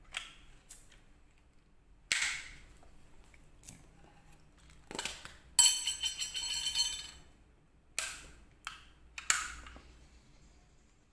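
Benjamin 310 .177 pump-action air rifle being pumped: a few short hissing pump strokes with clicks of the lever. About halfway through there is a loud metallic clank that rings on for over a second.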